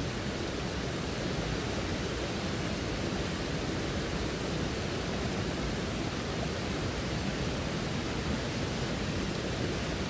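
Steady rushing of a waterfall and of the rocky stream running below it.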